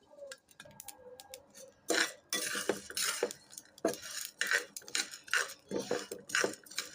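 Metal utensil stirring thick rice grains in a pan as they are dry-roasted for chal bhaja, with irregular scraping and clinking strokes that begin about two seconds in.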